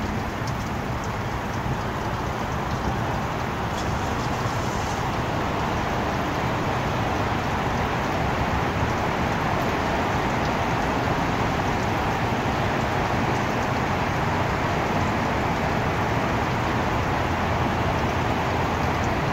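Steady urban traffic noise: a constant hiss over a low rumble, with no distinct events.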